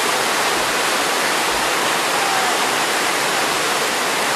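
Whitewater rapids rushing steadily.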